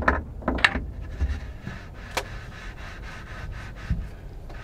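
Handling noise as a light aircraft's wing is pushed into the fuselage and its spar pins lined up: two short breathy bursts at the start, a sharp click about two seconds in, and a dull knock near the end.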